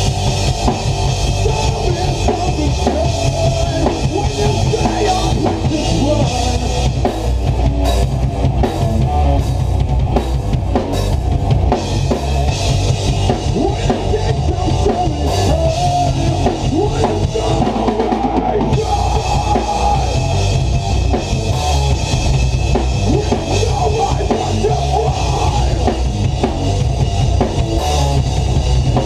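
Rock band playing loudly in a small rehearsal room: a full drum kit pounding steadily with bass drum and cymbals, over distorted electric guitars.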